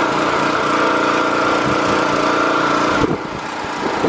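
Small petrol engine of a pressure washer running steadily, with a brief drop in level about three seconds in.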